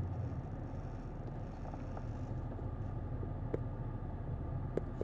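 Car engine idling, a steady low hum, with two faint clicks in the second half.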